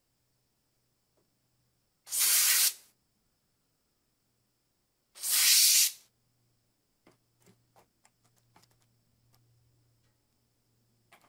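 Two spray bursts from a spray can with a red straw nozzle, each a loud hiss of under a second, about three seconds apart, coating a rusty lighter in foaming liquid. Later come several faint, short clicks of metal being handled.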